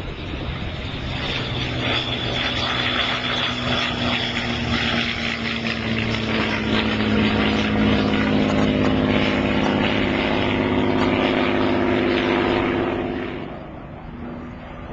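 Messerschmitt Bf 109 E's propeller engine running steadily as it flies past, growing louder over the first several seconds and fading away near the end.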